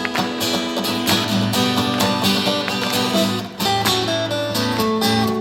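Two guitars strumming and picking the instrumental ending of a live pop-rock song.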